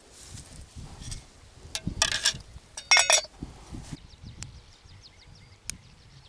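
Two short clusters of bright clinks, hard objects knocked together and ringing briefly, about two and three seconds in. Faint high chirping follows in the second half.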